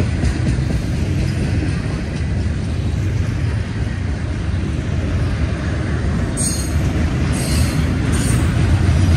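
Double-stack intermodal freight train of container-laden well cars rolling past, making a steady low rumble of wheels on rail that grows a little louder near the end.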